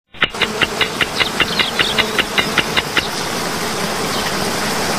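Film-countdown ticking, a quick regular tick about five times a second, over a steady rushing hiss. The ticking stops about three seconds in and the hiss continues alone.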